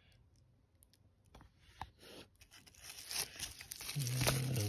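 Handling noise from a pistol being turned over and rubbed by hand. Scattered clicks and rustles build into a dense scraping and rubbing sound, loudest near the end.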